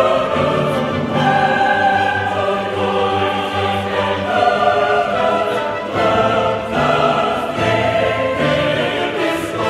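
A choir singing a requiem with an orchestra: held notes that shift from chord to chord.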